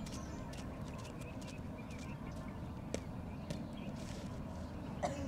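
Quiet open-air parade-ground sound: a low steady rumble with scattered light taps of boots as a cadet marches across the dirt ground.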